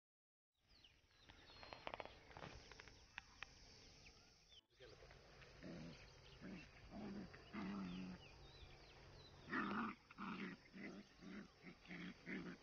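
Dogs growling in short, repeated bursts while an adult dog and a puppy play-fight, the bursts coming faster near the end.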